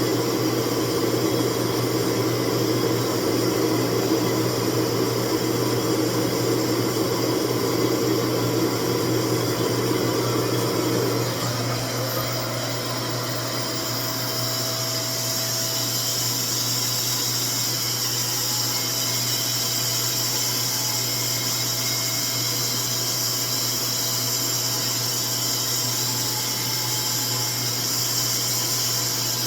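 RevAir reverse-air hair dryer running steadily, its suction motor and airflow making a constant whirring hum. About eleven seconds in the sound shifts to a thinner, higher hiss as the lower part drops away.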